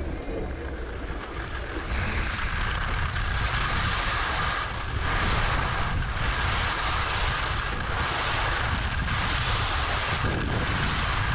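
Skis hissing and scraping over groomed, packed snow, the hiss swelling and fading about once a second, with a low rumble of wind buffeting the camera microphone as speed builds.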